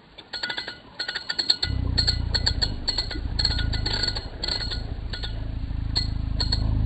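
Small spinning fishing reel clicking in quick, irregular ticks as the rod is worked, over a steady low hum that starts about a second and a half in.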